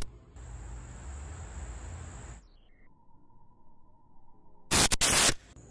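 A Bug-A-Salt salt gun fires with a loud, sharp blast about five seconds in. Before it there is a steady outdoor hiss with a thin, high insect-like drone that cuts out about two and a half seconds in.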